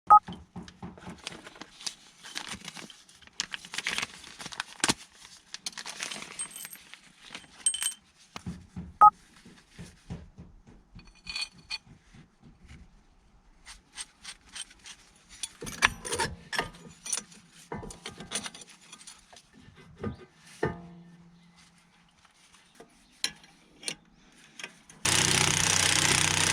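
Metal tools and parts being handled during front brake work: scattered clicks, taps and clinks, some sharp and loud, with quieter stretches between. Near the end a loud, steady, rattling noise starts suddenly.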